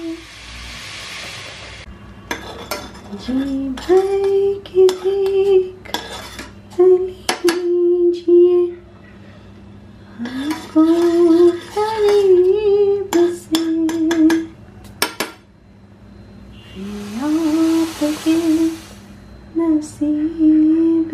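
A metal spoon clinks and scrapes against a stainless-steel saucepan as milk tea is stirred on a gas stove, in many sharp clinks. Over it a woman hums or sings a tune in long, wavering notes. A hiss rises near the start and again near the end.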